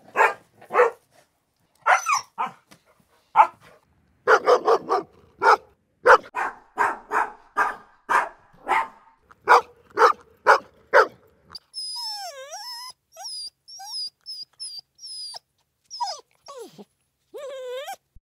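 A dog barking in a long run of short, sharp barks, singly and in quick bursts. About twelve seconds in it switches to high, wavering whines and yelps that slide up and down in pitch.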